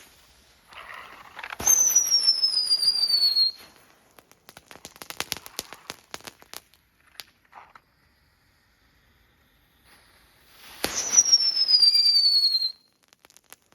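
Novelty M1 Abrams tank firework going off: a sharp crack and a loud whistle falling in pitch for about two seconds, then a scatter of pops and crackles, then a second crack and falling whistle near the end.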